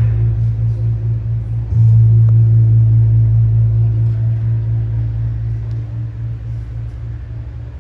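Deep hum of a large gong: it is struck again about 2 s in, and the low ringing tone slowly fades.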